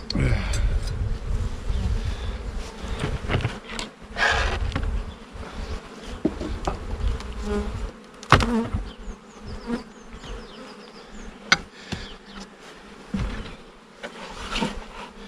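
Honeybees buzzing around an open beehive, with a few sharp knocks and cracks from the hive's wooden parts being worked open.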